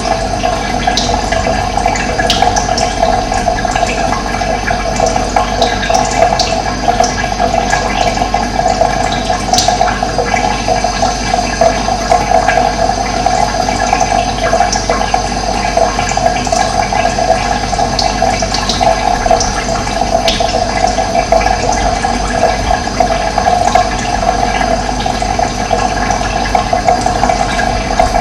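Steady rush of running water, with scattered short bird calls over it.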